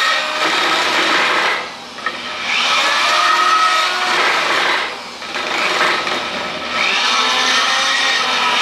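Handheld electric drill boring into a steel plate, motor running under load with a steady whine. Twice, about two and five seconds in, it eases off and then spins back up with a rising pitch.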